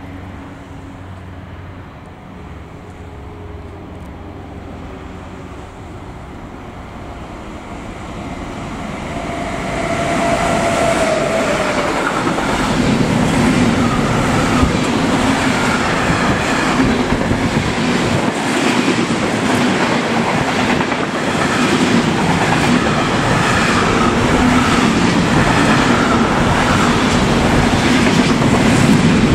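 Container freight train passing through a station: its noise builds from about eight seconds in, then the loaded container flat wagons go by with a steady rumble and a clatter of wheels.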